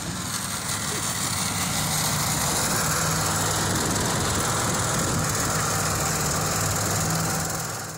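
Small engine of a tracked motorized snow tow running steadily as the machine pulls a person across snow, with a steady hiss over the engine note; the sound cuts off just before the end.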